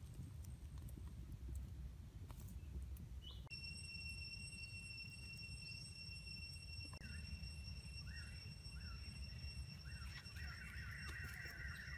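Birds chirping: short rising calls repeat from about halfway through and thicken near the end. Under them runs a low rumble, and a steady high-pitched tone comes in a few seconds in.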